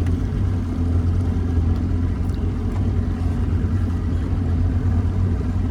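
A boat's motor running steadily with a low, even hum.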